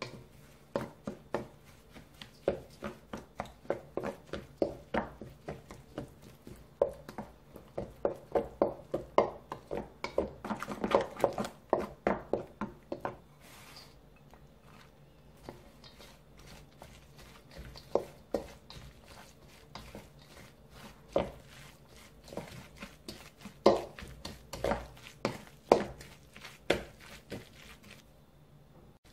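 Wooden spatula scraping and knocking against a stainless-steel mixing bowl as it stirs a thick chili-pepper seasoning paste. The strokes come quickly, about three a second, through the first half, then thin out to scattered strokes.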